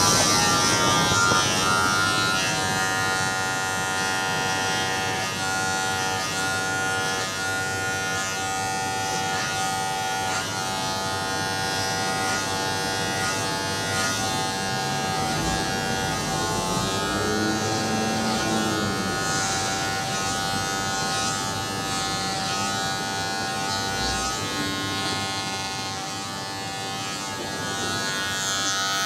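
Electric hair clippers buzzing steadily as they cut hair, with a brief shift in pitch about halfway through.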